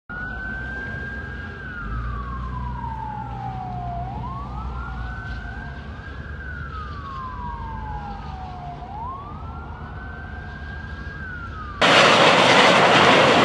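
Emergency vehicle siren wailing, rising quickly and falling slowly about every five seconds, with echoes. Near the end it cuts off abruptly to a loud, steady rushing noise.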